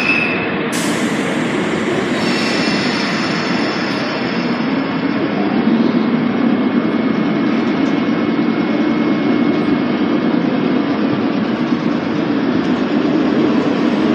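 Enshu Railway two-car electric train (motor car MoHa 25 with trailer KuHa 85) pulling slowly away from the platform, its motors and wheels rumbling steadily and growing fuller from about five seconds in. A brief hiss sounds about a second in.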